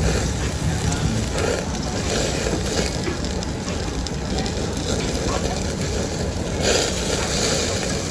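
Thin slices of meat sizzling on the wire grate of a tabletop yakiniku grill over a steady low rumble.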